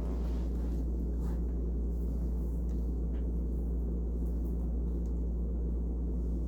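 A steady low hum, unchanging throughout, with no other events.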